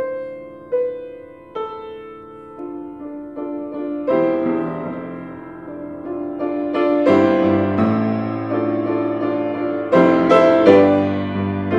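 Grand piano played solo: a slow, spare melody of single notes that fills out into fuller chords with a bass line about four seconds in.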